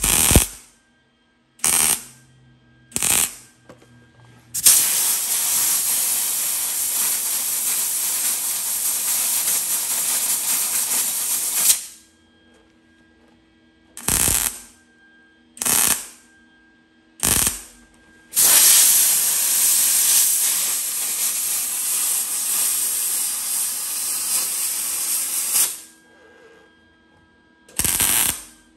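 MIG welder laying a series of short stitch welds on a sheet-steel quarter-panel seam, each a crackling burst of about half a second, seven in all. Twice there is a long steady hiss of about seven seconds, which is compressed air from an air hose blown over the seam to cool it so the panel does not warp.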